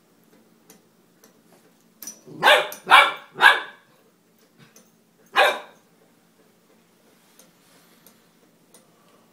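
Golden retriever puppy barking: three quick barks in a row, then a single bark about two seconds later.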